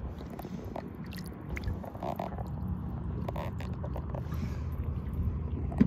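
Small splashes and water slaps as a hooked coho salmon thrashes at the surface beside the boat, over a steady low rumble.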